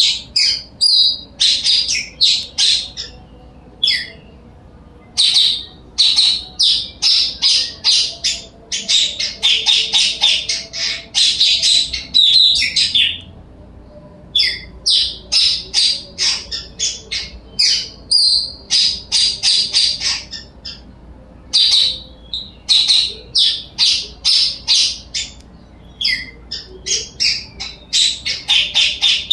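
Blue-crowned hanging parrot (serindit) calling lively: long runs of sharp, high-pitched chirps several a second, in bouts broken by short pauses.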